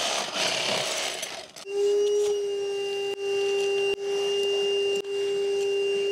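A power drill with a long masonry bit boring through brickwork at a door frame for about a second and a half. Then a vacuum cleaner starts, with a steady whine, sucking up the brick dust.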